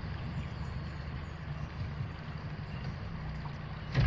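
Small aluminium boat's outboard motor running slowly with a steady low hum, and a single knock just before the end.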